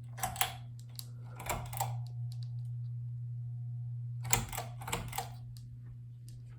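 Trice ceiling fan running with a steady low motor hum, broken by three short bursts of clicking and rattling: near the start, about a second and a half in, and again around four to five seconds in.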